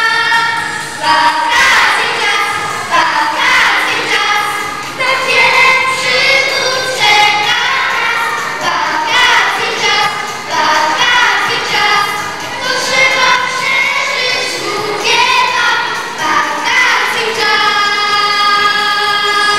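A group of young children singing a song together, with a long held note near the end.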